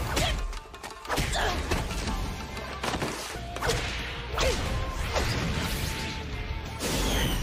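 Animated fight sound effects: a quick series of sharp hits and swishes, over background music with a steady low bass.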